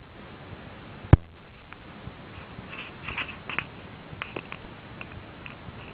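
A single sharp click a little over a second in, then a scatter of faint light taps and ticks over a low hiss.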